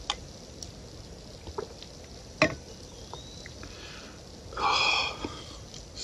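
A person drinking from a tall metal can: quiet sips, a sharp click about two and a half seconds in, and a short breathy exhale near the end.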